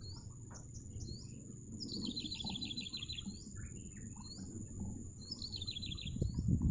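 A songbird calling in a swampy wetland: short upward-sweeping notes repeated every second or so, and two quick rattling trills. Under it runs a thin steady high whine and a low wind rumble, and a hiss rises near the end.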